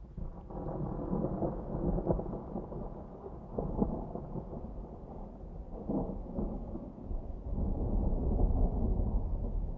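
Low rumbling storm noise that swells and eases, with a few sharper cracks, growing louder and deeper near the end.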